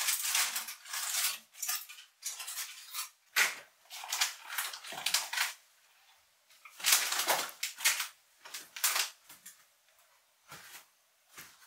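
Kitchen utensils clattering and scraping against dishes in irregular bursts, with short lulls about six seconds in and again near ten seconds.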